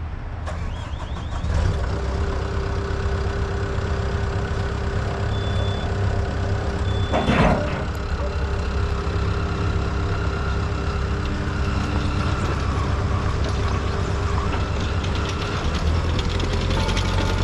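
ASV RT120 skid steer's diesel engine running steadily. Two short high beeps come about five and a half and six and a half seconds in, and there is a brief burst of noise just after them.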